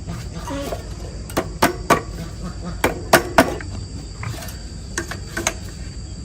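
Sharp knocks in two quick runs of three, then two more near the end, over a steady high chirr of insects.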